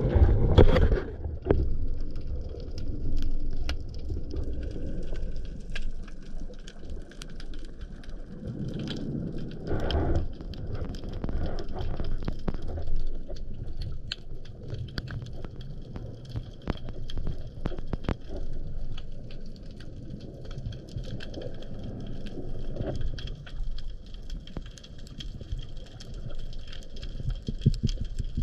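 Underwater ambience heard through a camera housing: a dense, steady crackle of small clicks over a low rush of moving water, with louder surges of water noise at the start and about ten seconds in.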